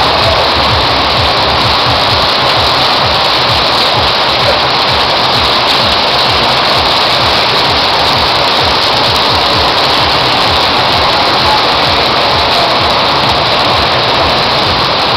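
Very heavy tropical rain pouring down steadily, a dense, even downpour.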